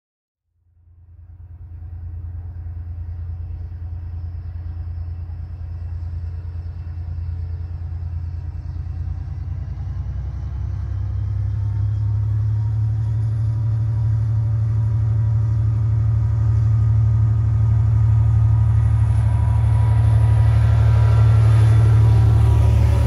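HŽ class 2044 diesel locomotive's engine running with a deep, steady rumble. It grows gradually louder, and its pitch edges up toward the end.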